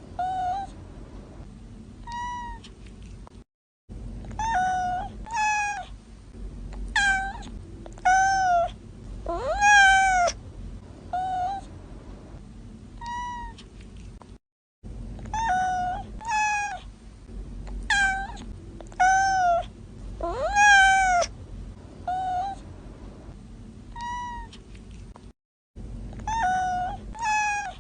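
Kittens meowing: a string of short high-pitched mews, with a couple of longer ones that rise and then fall, over a low steady background hum. The same run of meows plays twice, separated by brief moments of total silence.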